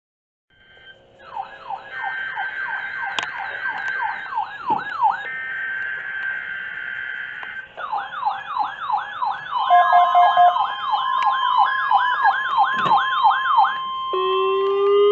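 Weather radio alarms going off during a NOAA Weather Radio weekly test: several repeating siren-like wails overlapping, with steady beeping tones. From about ten seconds in, the steady 1050 Hz warning alarm tone sounds over them.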